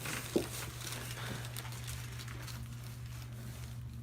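Steady low hum of the treatment room with one short thump about half a second in, then faint rustling as the patient shifts on the chiropractic table.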